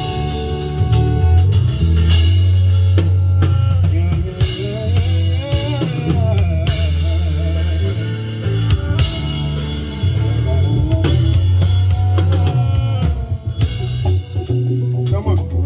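Afrobeat song intro playing loud through a PA sound system: drum kit with kick, snare and rimshots over a deep, steady bass line, with a wavering melody line coming in about four seconds in.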